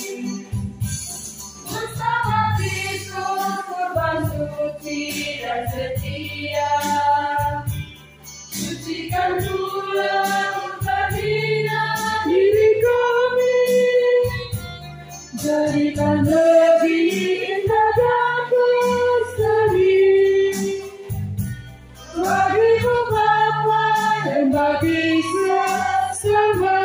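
Church choir of men and women singing a hymn to electronic keyboard accompaniment, the keyboard holding low sustained chords under the voices. The singing comes in long phrases with brief breaks between lines roughly every seven seconds.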